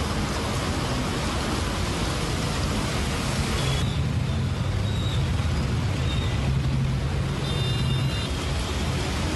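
Heavy rain hissing steadily, mixed with the low rumble of traffic on wet roads; the hiss changes character abruptly about four seconds in.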